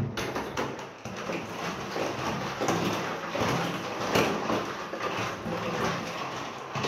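Sterilising solution sloshing inside a plastic brewing bucket as the bucket is tilted and turned by hand, with the plastic knocking and scraping irregularly.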